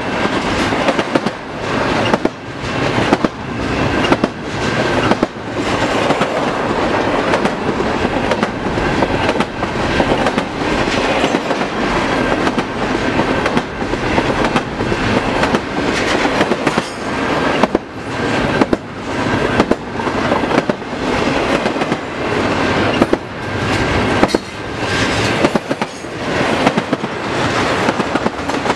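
Double-stack intermodal container well cars rolling past close by, the wheels clattering over the rails in a steady repeating rhythm under a continuous loud rumble, with a faint high whine running underneath.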